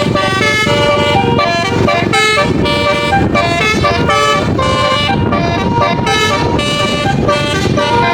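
Basuri telolet multi-tone bus horn playing a quick melody of short, stepped notes over a steady low engine and road rumble.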